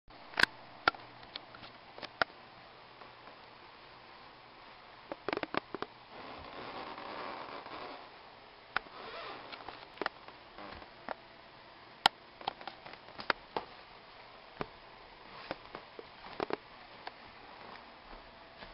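Scattered, irregular sharp clicks and taps, with a few seconds of soft rustling about six seconds in and again briefly near the middle. This is handling noise from a handheld camera being moved around.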